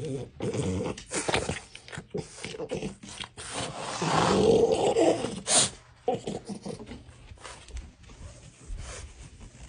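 French bulldog vocalising close up: a string of short noisy sounds, with a longer, louder one lasting about a second, about four seconds in.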